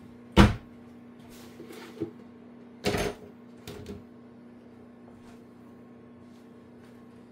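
Kitchen cupboard and large plastic bowl knocking and clattering as a bowl is fetched: one sharp knock about half a second in, a cluster of knocks around three seconds, lighter ones between, and another knock at the end, over a steady low hum.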